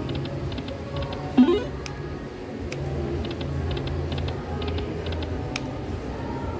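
Dragon Link video slot machine spinning its reels: clusters of quick ticks over the game's electronic tones, with one sharp knock about a second and a half in.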